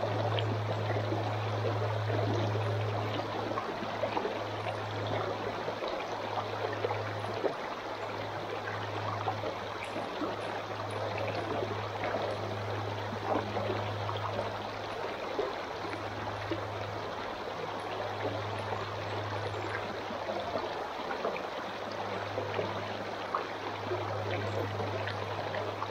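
Mountain trout stream running over rocks, a steady rush of water, with a low hum that comes and goes underneath.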